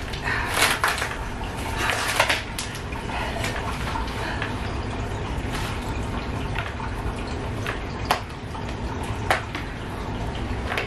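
Duct tape crinkling and crackling as it is pulled and picked at, in a cluster of sharp crackles in the first couple of seconds and two more near the end, over a steady background hiss.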